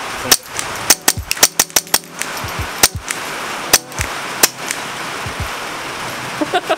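Integrally suppressed .22 rifle firing a quick string of shots, then three single shots about a second apart. Each shot is a short, fairly quiet crack. Rain hisses steadily on the shelter roof throughout.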